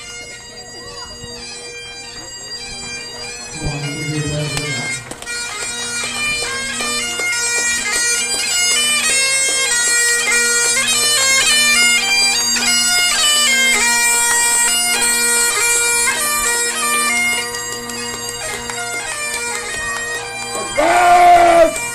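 Great Highland bagpipes playing a march tune over their steady drones, growing louder over the first few seconds. A brief loud voice cuts in near the end.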